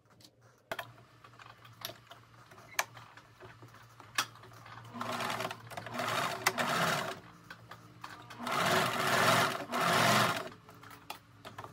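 Singer household electric sewing machine stitching a seam in two runs of about two seconds each, starting about five and about eight and a half seconds in. A few light clicks come before the first run.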